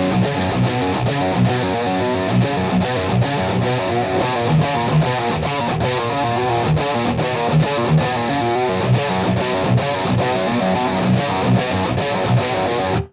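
Heavily distorted electric guitar through a Seymour Duncan bridge humbucker, double-tracked, playing a rhythmic low-tuned metal riff with short chugging notes. It cuts off suddenly at the end.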